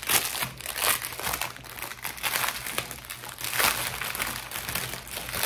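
Plastic packaging crinkling in repeated rustles as the bags of diamond-painting drills are unwrapped and handled.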